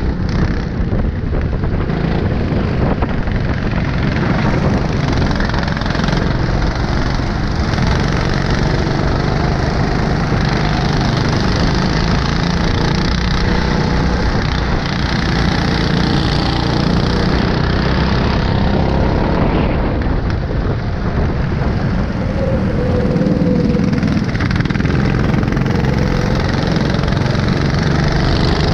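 Go-kart engine heard from onboard while racing, its pitch rising and falling as the throttle comes on and off through the corners.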